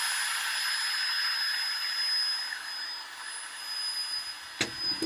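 Cordless drill running steadily with a high whine as its bit cuts a hole through a sheet-metal exhaust vent pipe. Near the end there is a knock and the drill stops.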